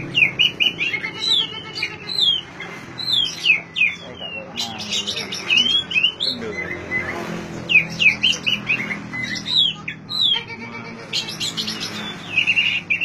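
Oriental magpie-robin (kacer) singing: a varied run of short, loud whistled notes sweeping up and down, turning to a fast even trill near the end.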